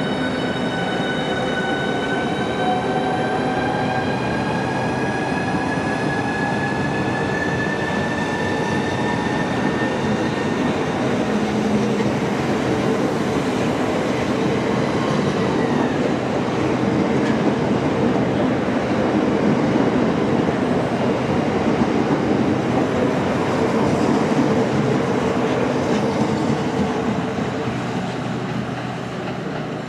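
Electric multiple unit accelerating: its traction motors give a whine that rises in pitch over the first ten seconds or so. Then the running noise of the train on the rails grows louder and eases off again near the end.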